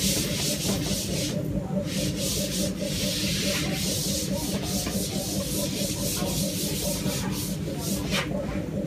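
A chalkboard being wiped clean by hand: a run of quick, hissy rubbing strokes that stop shortly before the end, over a steady low hum.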